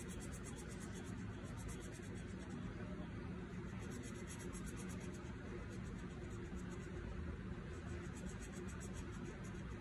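Red marker scribbling back and forth on paper, a fast run of faint scratchy strokes as it colours in a shape. A steady low hum sits underneath.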